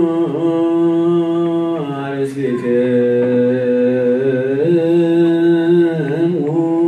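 Men's voices singing Ethiopian Orthodox liturgical chant in long, held notes. The pitch moves to a new note about every one to two seconds.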